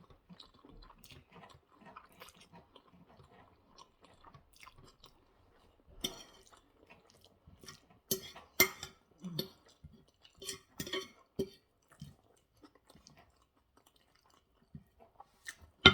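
Close-up chewing and mouth smacks of someone eating spaghetti bolognese: a run of short wet clicks, heaviest between about six and twelve seconds in.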